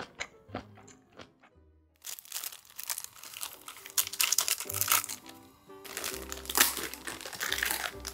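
Plastic ramyun packets crinkling and tearing, starting about two seconds in: the soup seasoning sachet is ripped and squeezed out into a pot of water, then after a short pause the noodle bag crinkles as it is handled. Background music plays underneath.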